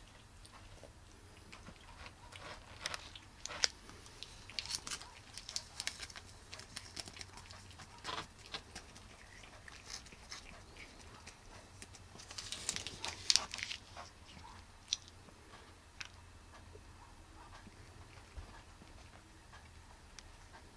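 Cats licking and chewing at silvervine on a cardboard scratcher: scattered small clicks and crackles, coming in two clusters, the louder near the middle.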